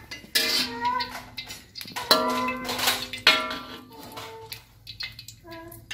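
A metal spatula knocking and scraping in an aluminium wok of heating oil, with a couple of sharp clangs. Several short pitched cries come and go over it.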